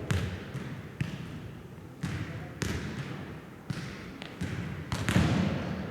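A jokgu ball being kicked and bouncing on the court: a string of sharp thumps, roughly one a second, with players' voices and calls around them.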